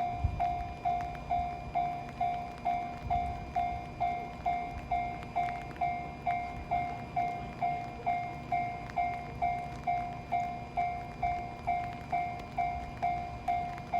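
Japanese railway level crossing alarm ringing steadily, an electronic bell tone repeating a little over twice a second, over the low rumble of a train.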